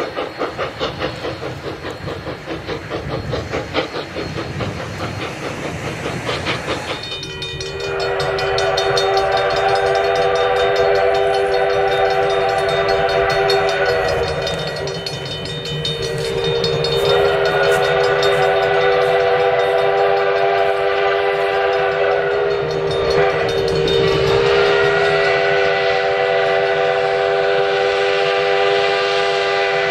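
Sierra Railway No. 3 steam locomotive running with a rhythmic beat for several seconds, then its chime whistle sounding a chord of several notes in three long blasts, with a short break and a sag in pitch just before the last. The blasts are the locomotive whistling for a grade crossing.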